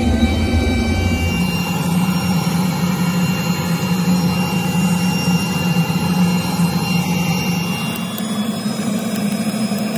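Rotary melting furnace and its air blower running with a steady loud rushing noise and a low hum; the deepest rumble drops away about a second and a half in. Light clinks of metal pieces near the end.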